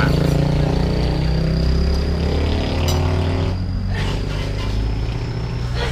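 A motor vehicle's engine running steadily, a continuous low hum, with a thin steady high-pitched whine over it.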